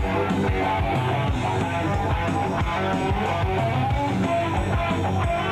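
Background music: guitar music with a steady beat.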